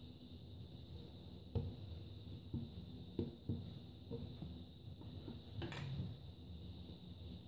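Yeast dough being divided and rounded into balls by hand on a countertop, with a plastic dough scraper handled on the counter: a few soft knocks and taps, the sharpest about one and a half seconds in, over a faint steady hum.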